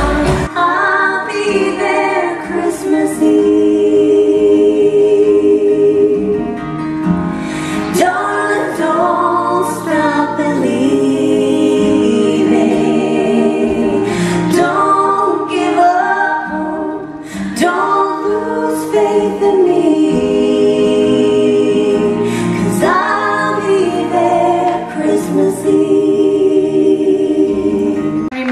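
A female vocal trio singing live in close harmony, with long held notes, heard from the audience in a theatre.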